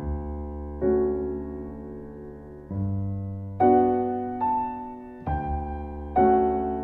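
Slow, gentle solo piano music: chords struck about once a second, each left to ring out and fade.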